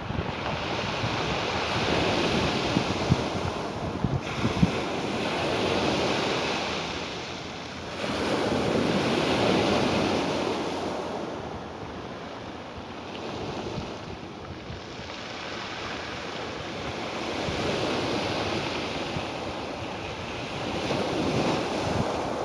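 Ocean surf washing onto a shore: a rushing hiss that swells and fades in slow surges every few seconds, the loudest about nine seconds in.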